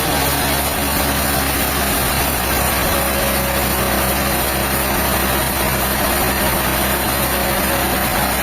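An engine running steadily at an even speed, with a continuous mechanical hiss over it.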